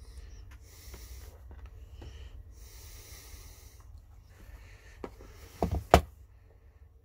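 A phone knocks against the toughened glass top of a digital bathroom scale as a hand moves it, two sharp knocks near the end, the second the louder. Before that there are only faint hissy rustles over a low hum.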